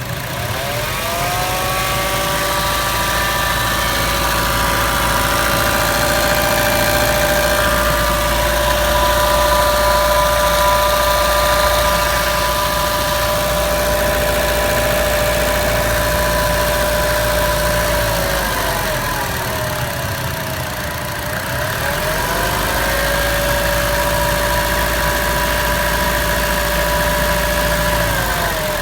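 Chevrolet Trax engine running with a rattle, which the owner cannot place and does not expect on a new car. The engine note rises about a second in, holds steady, sags about eighteen seconds in, climbs back a few seconds later, and dips again near the end.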